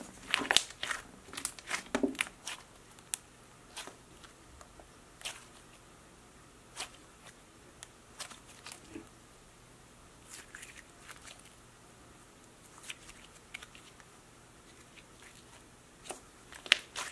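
Thick, holdable slime being pressed, squeezed and stretched by hand, making irregular small clicks and pops. They come thickest in the first few seconds and again near the end.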